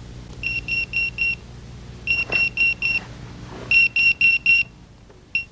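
Electronic call alert, a pager or mobile phone going off: three bursts of four quick, high beeps, signalling an incoming call.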